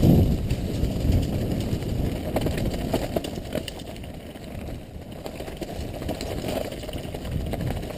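Mountain bike riding fast down a rough, rocky gravel trail: a steady low rumble of tyres and shaking bike, with many small rattles and clicks over the stones. Loudest at the start, easing off about four to five seconds in.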